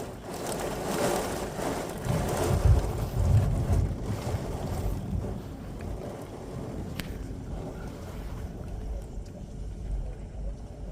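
Thunder rolling after a nearby lightning flash: a low rumble that swells about two to four seconds in, then fades to a steady lower rumble.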